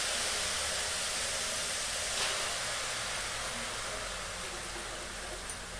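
Wet, freshly drained mushroom pieces sizzling in a hot, dry kadhai as their water steams off: a steady hiss that slowly dies down, with a faint click about two seconds in.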